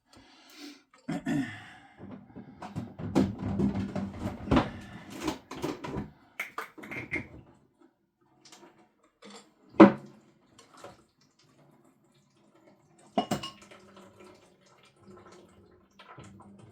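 Water splashing out of an opened under-sink boiling-water boiler tank as it is tipped and handled, with clunks and knocks of the tank and parts being moved. The loudest is a single sharp knock about ten seconds in, with another near thirteen seconds.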